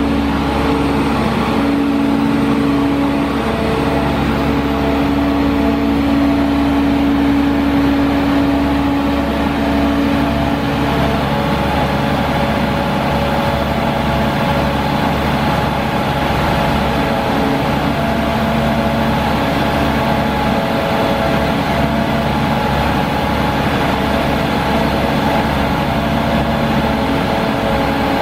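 A Sandvik DX680 crawler drill rig's Caterpillar C7 diesel engine running steadily under hydraulic load while the rig folds its drill boom down from upright. Its note shifts about ten seconds in.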